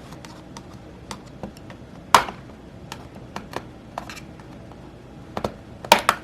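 Plastic retaining clips of an HP ProBook x360 G6 laptop keyboard popping loose as the keyboard is pried up from the palmrest: a scatter of sharp clicks and snaps, the loudest about two seconds in and near the end.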